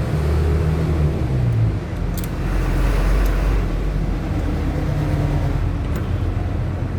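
A motor vehicle's engine running with a steady low rumble, which deepens and swells for a second or so about two seconds in.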